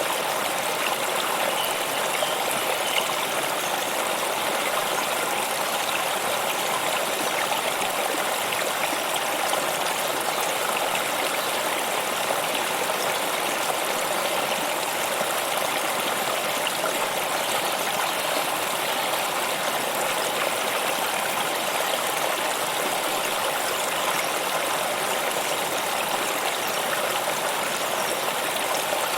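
Running water flowing steadily, an even rush with no breaks or changes.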